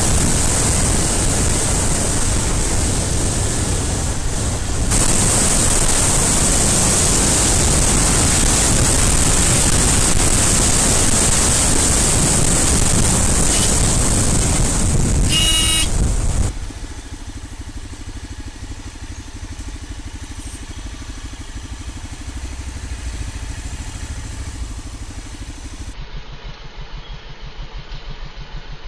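Motorcycle ridden at road speed, its engine buried under a loud, steady rush of wind and road noise. A short horn beep comes about 15 s in. After a cut near the middle, the motorcycle engine is heard running more quietly at low speed.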